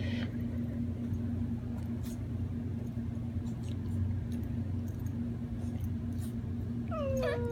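A pet's playful drawn-out vocal call that begins near the end, rising in pitch and then held as a long whining tone, over a steady low hum.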